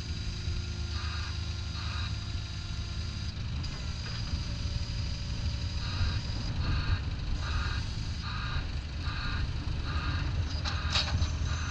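Takeuchi T216 mini excavator's diesel engine running steadily, with its travel alarm beeping at an even pace of about three beeps every two seconds, strongest in the second half: the machine is tracking.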